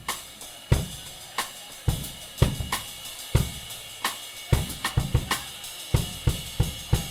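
A live drum kit playing a beat on its own, a song's intro: kick drum, snare and cymbals struck in a quick, even rhythm.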